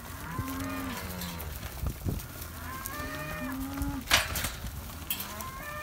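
Cattle mooing: several drawn-out low calls from more than one cow, overlapping. A short thump about four seconds in.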